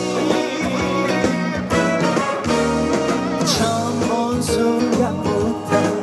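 A Korean trot song sung live through a PA system, the singer's voice over amplified backing music.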